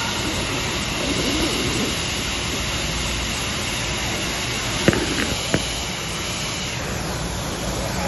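Steady rushing background noise with no distinct calls, broken by two sharp clicks about five seconds in, half a second apart.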